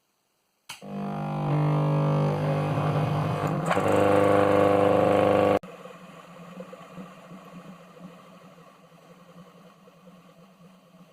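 Soft starter driving an electric motor with a misfiring SCR: a sudden loud buzzing hum of several steady tones that steps louder twice, then cuts off abruptly after about five seconds, leaving a fainter hum that fades away.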